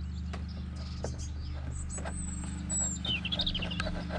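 A steady low mechanical hum, with small clicks of wood shavings being picked out of a drilled hole in pine boards. A bird's quick run of falling chirps comes about three seconds in.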